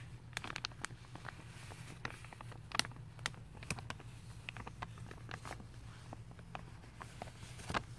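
Thin plastic sheeting over a carpet roll crinkling and crackling as a hand pulls and handles it: irregular crisp snaps, over a steady low background hum.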